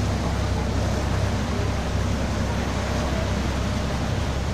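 Passenger boat under way: a steady low engine rumble with the even rush of churning water from the wake and wind.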